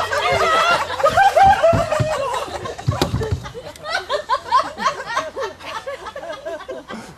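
An audience laughing, with scattered voices, fading over several seconds. A few dull low thumps come in the first few seconds.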